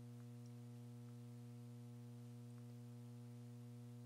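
Faint, steady electrical mains hum with a low buzz and its overtones, unchanging throughout.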